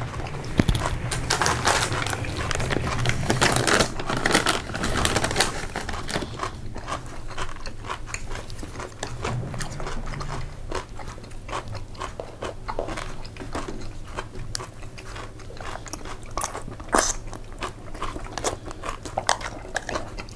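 Close-miked eating of pasta: a few louder bursts in the first few seconds, then steady chewing with many small wet mouth clicks and crunches.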